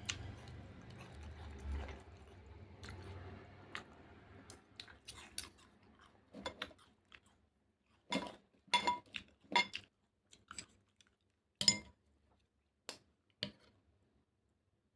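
Close-up eating sounds: a person chewing, with a scattering of sharp crunches and clinks of a utensil on a dish that come thicker and louder in the second half.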